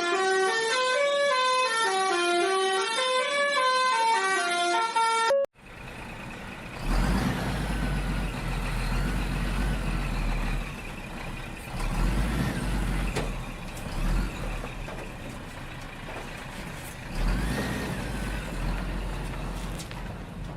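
A short electronic tune of clear stepped notes that climb and fall, cut off abruptly about five seconds in. Then a truck-engine rumble runs on, swelling a few times, with faint whines that rise and fall.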